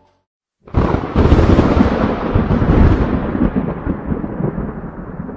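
Thunder: a sudden loud clap about a second in, followed by a long rumble that slowly fades.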